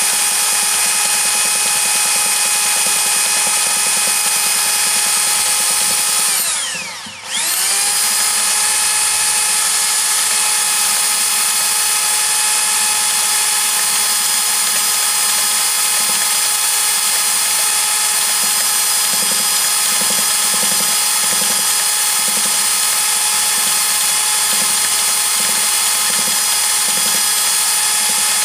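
Cordless drill running steadily at high speed, spinning a Brigadir chainsaw's oil pump through an adapter to test chain-oil delivery. About seven seconds in, the drill slows almost to a stop and spins straight back up.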